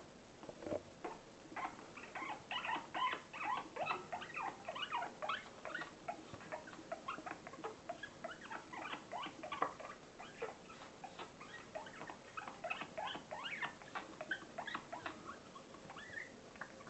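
A small pet animal making a long run of rapid, short squeaks and chirps, several a second, starting about a second and a half in and thinning out near the end.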